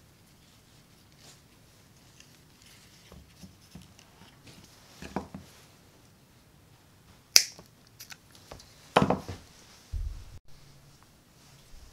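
Workbench handling sounds of leather and lacing, with a sharp snip of side cutters trimming the lace about seven seconds in. A rustling scrape follows, then a low thump as the tools and sheath are set down on the wooden board.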